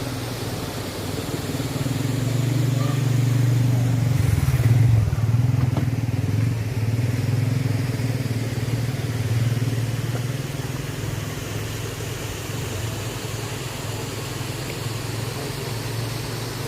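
Motorcycle engine running while being ridden, a steady low hum over road and wind noise. It grows louder over the first few seconds, shifts briefly in pitch about five seconds in, then settles back.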